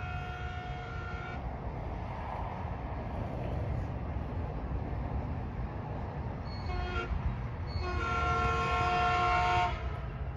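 Metrolink train's multi-chime air horn sounding as the train approaches. A held blast ends about a second in, then a short blast comes near the seven-second mark and a longer, louder one follows, over a steady low rumble.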